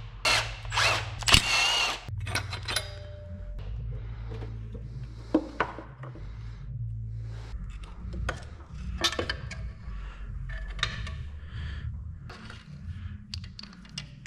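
A few short bursts of a power tool in the first two seconds, then scattered metal clinks and ratchet clicks as bolts and a motor mount bracket come off a 6.0L Powerstroke diesel engine.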